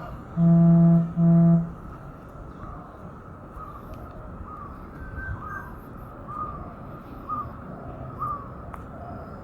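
Two loud, low, steady-pitched honks, each about half a second long, in the first two seconds. After them, faint short bird chirps repeat over a steady background.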